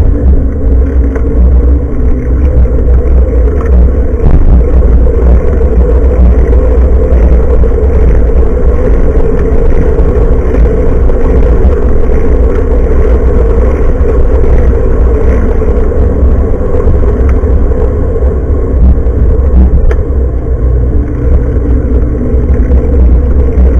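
Wind buffeting and road vibration on the microphone of a handlebar-mounted Nikkei Extreme X6 action camera while cycling: a loud, steady low rumble.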